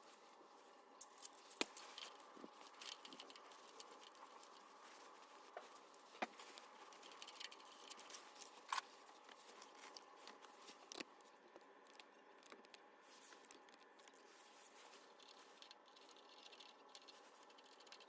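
Faint work sounds: light metallic clicks and clinks of hand tools and small parts being handled, scattered through the first two-thirds, over a low steady hum.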